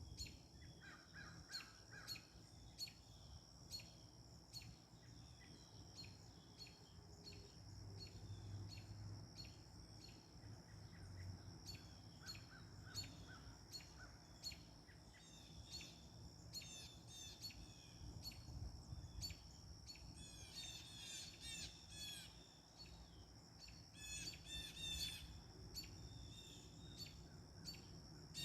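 Backyard birds chirping and singing faintly, with a busier burst of song about two-thirds of the way through. Behind them are a low wind rumble, a steady high tone and faint regular ticking.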